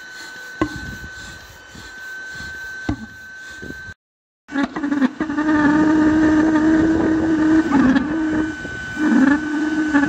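Pulse jet engine running with a loud, steady low buzzing drone, its pitch dipping briefly twice near the end. Before that, about four seconds of quieter hissing with a steady high whistle, then a brief break in the sound.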